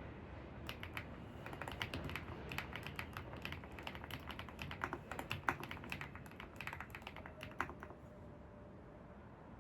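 Typing on a computer keyboard: an irregular run of quick key clicks that stops about eight seconds in, over a faint steady low background noise.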